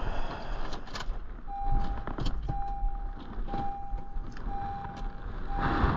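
Vehicle warning chime beeping at a steady pitch, about once a second, with scattered clicks and knocks of someone settling in.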